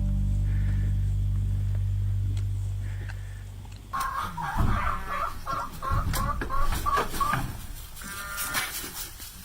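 A chicken clucking: a quick run of short, evenly spaced clucks, about three a second, starting about four seconds in, after a steady low hum.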